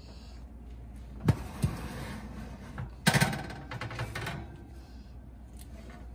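Metal pizza pan being pulled out on a wire oven rack: two sharp knocks, then a louder clatter of metal on metal about three seconds in, with lighter clinks after.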